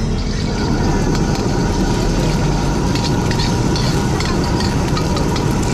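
Gas wok burner running with a steady rumble under a wok, while an egg sizzles in hot oil and a metal ladle scrapes and taps against the wok a few times.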